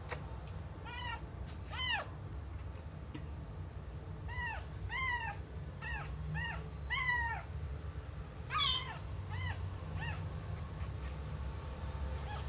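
A small kitten mewing repeatedly: about a dozen short, high-pitched mews, each rising then falling, with one louder mew about two-thirds of the way through.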